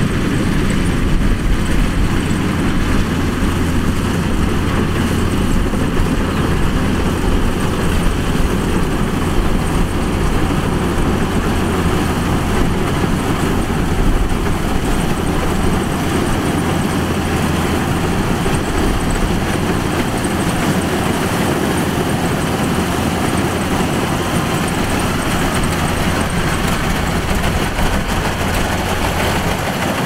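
Kubota DC-105X combine harvester running steadily, its diesel engine giving a constant low drone.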